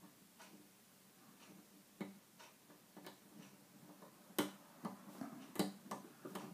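Small metallic clicks and scrapes of a hook pick and tension wire working the levers inside a two-lever brass padlock. The clicks are irregular, sparse at first, then louder and more frequent in the second half.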